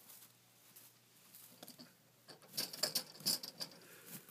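Guinea pig gnawing at and rattling the metal bars of its cage: a run of sharp clicks and rattles, loudest in a cluster about two and a half to three and a half seconds in.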